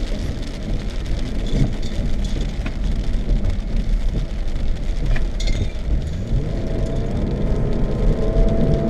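Vehicle interior noise while driving on a rough dirt track: steady engine and tyre rumble with a few light knocks, and a faint whine near the end.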